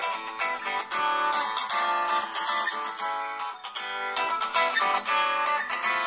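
Samsung Galaxy S3 Mini ringtone playing through the phone's small loudspeaker: a quick run of plucked and strummed guitar notes with no bass.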